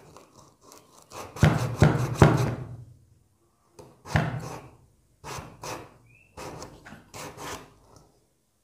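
Wooden stick ramming a damp sand, sawdust and glue mix down into a small pipe to compact it: a run of knocks and scraping strokes. Three hard knocks come close together in the first few seconds, then lighter strokes every second or so.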